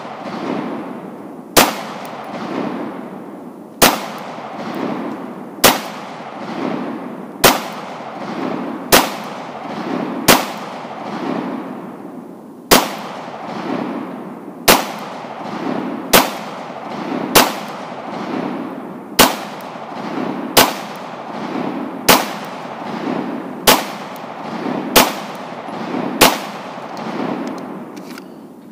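FN 509 Tactical 9mm pistol fired unsuppressed in slow aimed fire, sixteen shots about one and a half seconds apart, with a pulsing rumble between the shots.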